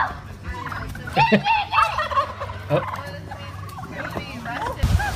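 Turkeys gobbling in several quick, wavering calls, loudest about a second in.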